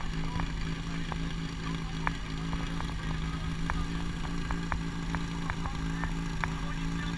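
Small engine of a portable fire pump idling steadily with a constant low hum, ready for the firefighting attack, with scattered short high ticks over it.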